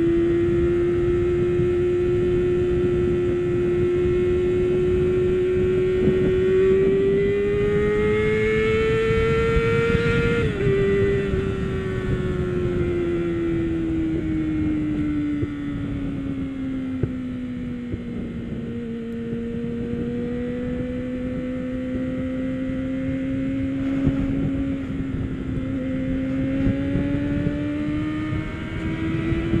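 Suzuki GSF250 Bandit's 250 cc inline-four engine running hard at high revs on the move. Its pitch climbs steadily, drops suddenly about ten seconds in as at an upshift, sinks slowly as the revs come down, and rises again near the end. Wind rumble on the microphone runs underneath.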